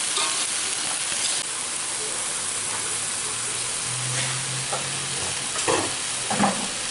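Chopped papaya leaves sizzling with a steady hiss as they are stir-fried in an aluminium wok, with a couple of brief knocks of the spatula against the pan near the end.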